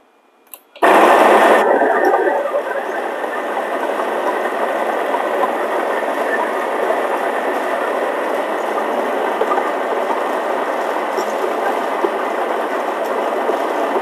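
Barsetto BAE02 espresso machine's built-in grinder grinding coffee beans straight into the portafilter. It starts abruptly about a second in, is loudest for its first second or so, then runs steadily.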